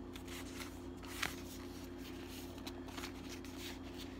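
Paper stationery cards and envelopes being handled and shuffled: soft rustles with a small tap about a second in, over a steady low hum.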